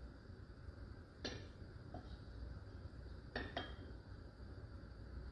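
A few light clinks of a small cup against its saucer: one about a second in, then a close pair around three and a half seconds. Faint room hum underneath.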